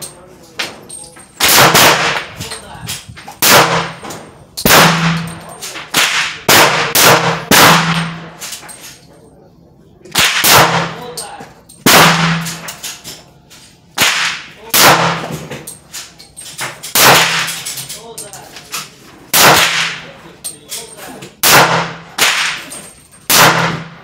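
.38 Super semi-automatic pistol firing a long string of loud shots, irregularly spaced, each with a short ringing echo, with a pause about eight to ten seconds in.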